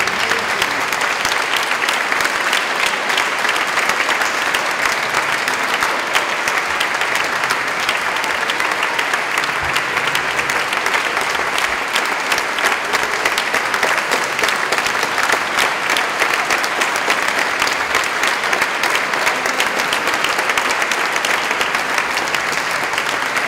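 Steady applause from an audience and the performers, many hands clapping at once without a break.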